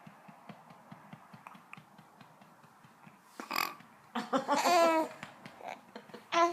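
Burps: a short one about three and a half seconds in, then a longer, pitched burp lasting about a second, and a brief one near the end, with faint small clicks before them.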